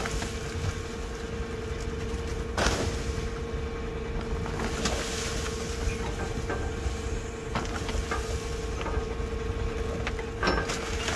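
Steady machine hum with wind rumbling on the microphone, a sharp knock about two and a half seconds in and a few lighter clicks after it.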